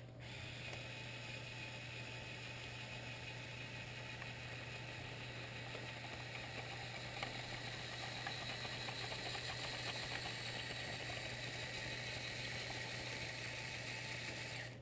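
Lego Technic 8043 excavator's Power Functions electric motors and plastic gears whirring steadily as the model runs on its tracks.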